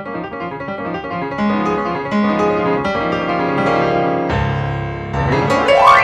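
Grand piano played solo, a run of melody over chords that ends in a fast run sweeping up the keyboard over a low held bass, loudest at its top near the end.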